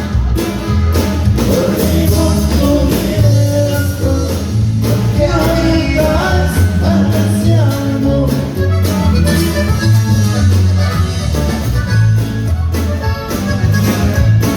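Norteño band music: a steady, bouncing bass line under accordion melody, with a voice singing along.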